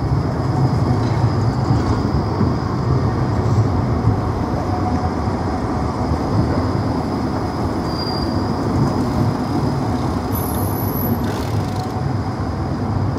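Škoda ForCity articulated low-floor tram rolling past on street track: a steady, continuous rumble of wheels on rail and running gear.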